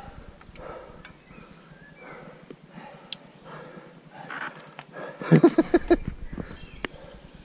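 A cyclist breathing hard on a steep climb, with a loud run of quick, voiced panting breaths lasting under a second about five seconds in.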